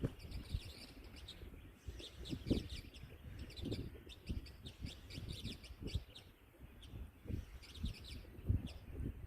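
Small birds chirping: many short, quick high calls, each falling in pitch, repeated throughout. Irregular low thumps and rumble sound underneath.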